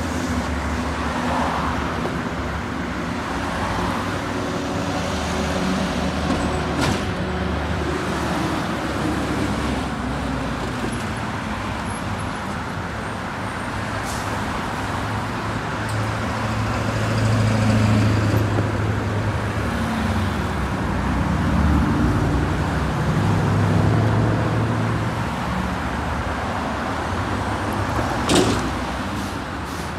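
Street traffic at an intersection: cars and a minibus passing close by with engine and tyre noise over a steady low rumble, which swells several times in the second half. A single sharp click near the end.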